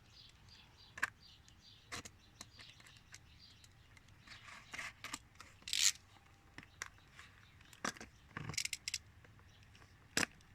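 A keyboard's retail packaging being handled and worked open by hand: scattered scrapes, rubs and clicks as the box resists opening.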